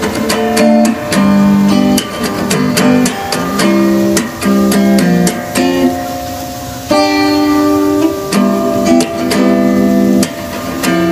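Background music: a guitar tune with a steady, evenly struck beat.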